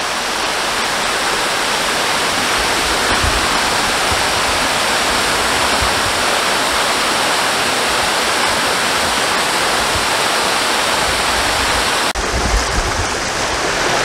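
Small woodland waterfall pouring over a rock lip into a stony stream: a loud, steady rush of falling water, briefly broken about twelve seconds in.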